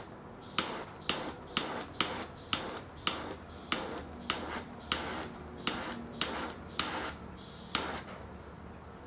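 Handheld butane torch fired in short bursts against a piglet's skin to singe off its fine hair: each burst is a sharp click followed by a brief hiss. About fifteen bursts come at roughly two a second and stop about eight seconds in.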